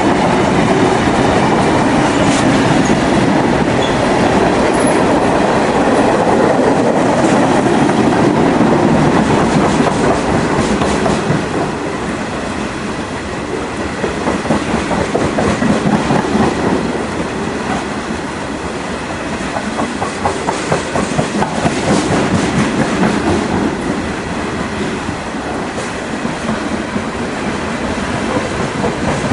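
Freight cars of a long NYS&W freight train rolling past, tank cars and then loaded open-top cars: steel wheels clickety-clacking over the rail joints over a steady rolling rumble that ebbs and swells.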